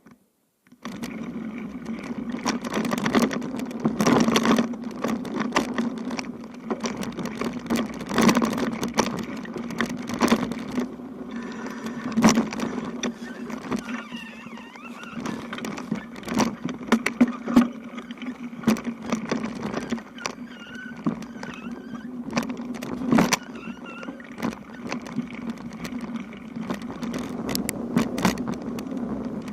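Bicycle rolling over a rough road, heard from a camera on the bike: a steady hum from the tyres and drivetrain with frequent knocks and rattles over bumps. It starts suddenly about a second in.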